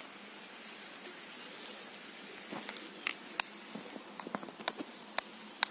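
Faint, scattered small clicks and taps of hands handling cooking things (oil bottle, egg, knife) on dry ground, the sharpest a little after three seconds in, over a faint steady background hiss.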